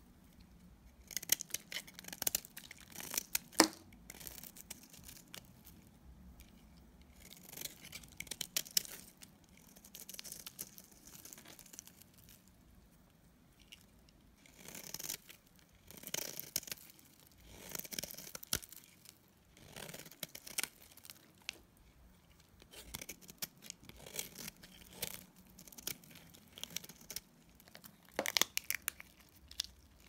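Utility knife blade shaving thin flakes off a bar of dried soap: crisp scraping crackles in repeated strokes, with short pauses between strokes. One sharp click stands out near the start.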